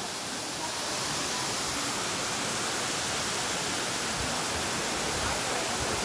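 Waterfall rushing steadily, a constant hiss of falling water splashing onto rocks and into a pool.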